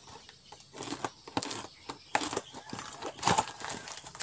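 Plastic packaging rustling and crinkling as a parcel is opened by hand, with scattered sharper clicks and taps.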